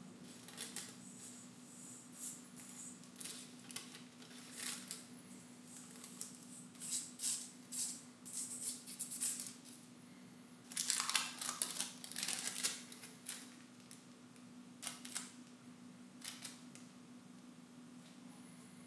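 Irregular short scratchy rustles and rubbing strokes from hands laying gold leaf onto the ball, loudest in a cluster about eleven to thirteen seconds in, over a steady low hum.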